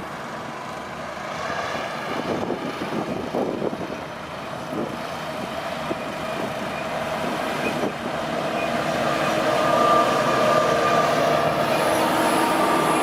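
Heavy road-construction machine's engine running, growing steadily louder, with a steady whine coming in over the second half.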